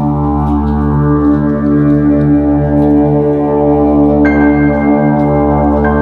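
Background music: sustained ambient drone chords with a slowly pulsing low note, and a higher held tone that enters about four seconds in.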